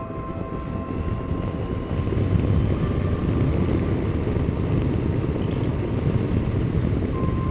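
Yamaha Tracer GT three-cylinder motorcycle under way on a road, its engine and wind rush heard from a helmet camera as one steady low roar, getting louder about two seconds in.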